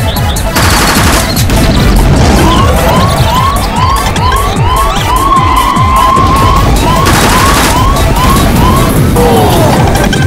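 Fast electronic dance track at about 150 bpm with a steady kick drum, overlaid with a siren-like synth swoop that rises again and again on each beat. A burst of rushing noise comes in about half a second in, and again about three-quarters of the way through.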